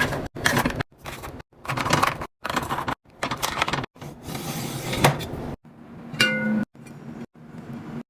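Fast-cut restocking sounds: packaged items being handled, rustled and set down, each snippet cut off abruptly. There is a sharp knock about five seconds in and a short ringing clink about a second later.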